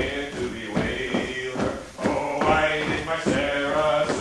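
Folk dance music for a Molly dance reel, with the dancers' feet stamping and knocking in time with it.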